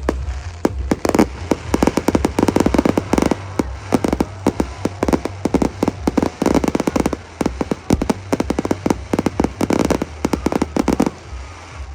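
Fireworks display going off in a rapid, continuous barrage of bangs and crackles, with denser volleys every second or two, stopping abruptly about a second before the end.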